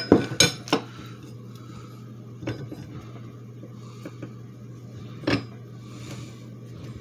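Steel parts of a slide hammer puller set clinking and knocking together as they are handled: a few sharp clinks in the first second, another about two and a half seconds in, and a louder one a little after five seconds, over a steady low hum.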